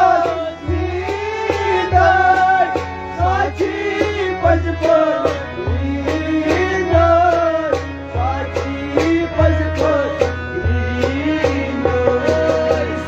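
A man singing a song while playing an electronic keyboard, over a steady drum beat with deep thumps.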